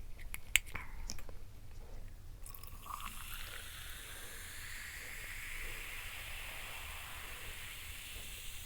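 A few light clicks, then liquid being poured, a steady hiss that rises slightly in pitch as the vessel fills.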